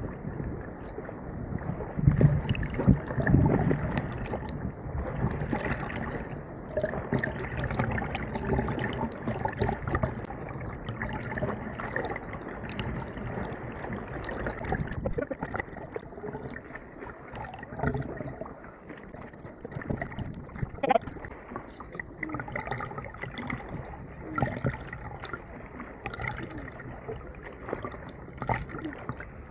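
Sea water sloshing and splashing around a camera held at the surface by a swimmer, close and muffled, with irregular surges that are heaviest a few seconds in.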